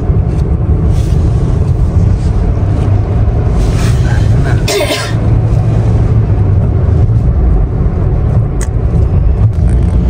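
Steady low rumble of a moving road vehicle, with a short hiss just before five seconds in.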